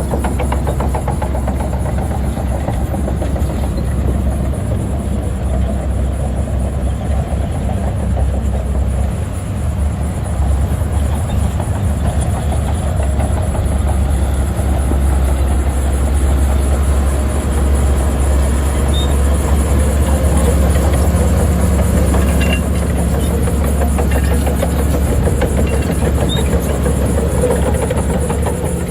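Diesel engine of heavy earth-moving machinery running steadily with a low drone and a continuous rattling clatter.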